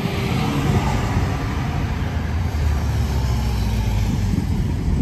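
City bus driving past close by and pulling away from the stop, its engine a loud, steady low rumble.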